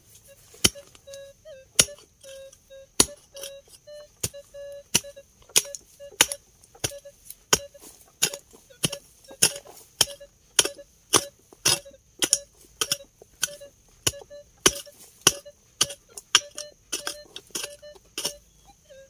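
Metal detector's beeping tone sounding in short broken stretches over a digging tool chopping into soil at an even pace, about one and a half strokes a second, as a detected target is dug out.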